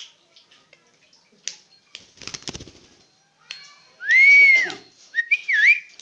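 Asian pied starling vocalizing: scattered harsh chattering notes, then a loud arched whistle about four seconds in and a shorter wavering whistle near the end.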